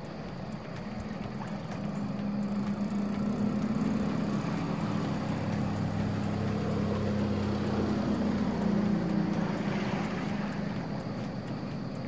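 Engine of a small motorboat running as it passes across the harbour, a steady hum that grows louder through the middle and fades near the end.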